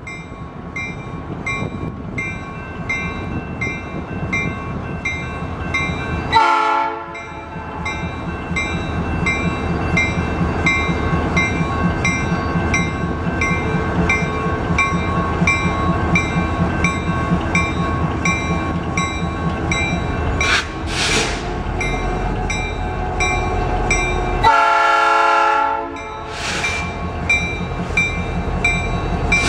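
BNSF freight train's diesel locomotives sounding the horn at a road level crossing, with a long blast about six seconds in and another near twenty-five seconds, plus shorter toots. Under the horn, the crossing warning bell rings steadily in an even repeating beat. The locomotives' engine rumble grows louder near the end as they reach the crossing.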